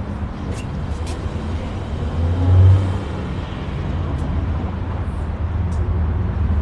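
Steady low rumble of outdoor traffic, swelling louder for a moment about two and a half seconds in, with a few light clicks in the first second.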